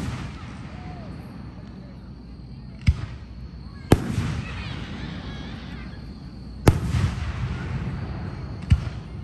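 Aerial fireworks shells bursting: four sharp bangs, about three, four, six and a half and eight and a half seconds in. The middle two are followed by a second or so of crackle.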